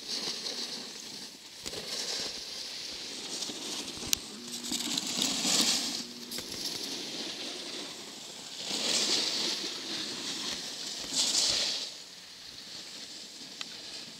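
Snowboards scraping across packed snow: a hiss that swells and fades several times as riders slide by, with a single sharp click about four seconds in.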